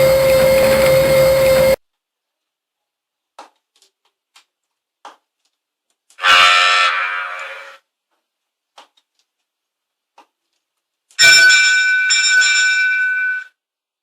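Ship horn sound effects from an RC boat sound unit: three separate horn blasts. The first is a steady low tone that cuts off about two seconds in. The second, about six seconds in, fades away over a second and a half. The last, near the end, is higher-pitched. Faint clicks fall between the blasts.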